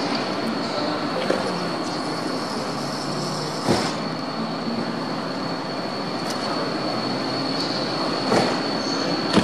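Class 66 two-stroke diesel locomotive hauling freight wagons, with a low engine drone under a steady, thin, high wheel squeal. Four sharp clacks come at uneven intervals as the wheels cross rail joints and pointwork.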